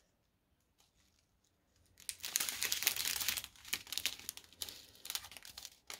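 Clear plastic strip packets of diamond-painting drills crinkling as they are handled, starting about two seconds in and going on in irregular rustles.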